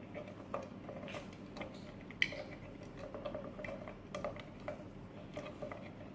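Stirring lye into water in a mixing container: the stirring utensil taps against the container in quick, irregular ticks, with one sharper click about two seconds in.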